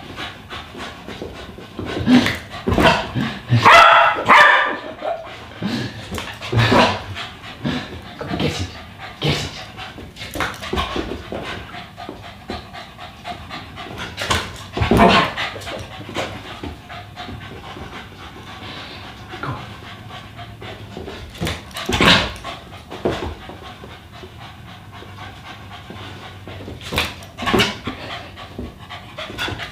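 A dog panting hard while jumping at a balloon and batting it, with sharp taps and thumps every few seconds. There is a brief high squeak about four seconds in.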